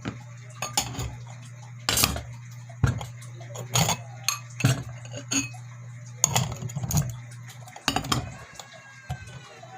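Dishes, pots and utensils being handled and set down while the kitchen is tidied up, a run of sharp clinks and knocks at irregular intervals. A steady low hum runs underneath and stops about eight seconds in.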